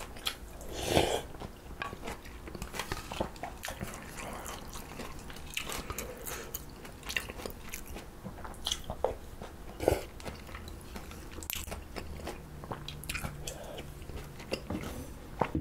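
Close-miked eating of mulhoe, Korean cold raw-fish soup: wet chewing and crunching of raw fish and vegetables, with sharp little clicks of the spoon against the bowl and a few louder slurps of the cold broth, one about a second in and another near the ten-second mark.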